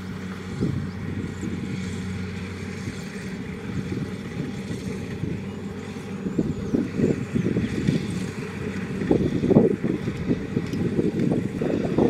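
Kubota DC-70 Plus rice combine harvester running steadily under load as it cuts and threshes rice. From about halfway a rough, uneven low rumble grows louder as the machine comes closer.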